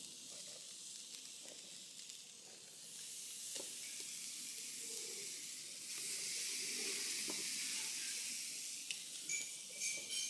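Marinated head-on shrimp sizzling as they are laid face down on a hot charcoal grill grate. The hiss swells about three seconds in and again around six seconds, with a few light clicks near the end.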